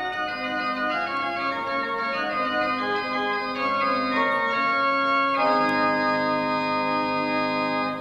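1630 pipe organ playing an improvisation in the style of its period: a flowing line of sustained notes, then a full chord held from about five seconds in.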